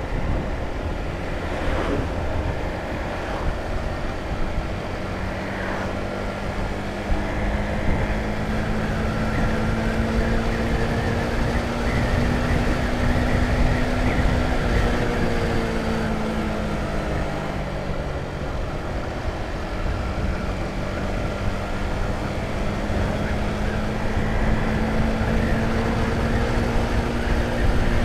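Honda CBR150R single-cylinder engine running under way, with wind rumble over the rider's microphone. The engine note climbs slowly, drops away about halfway through, then climbs again.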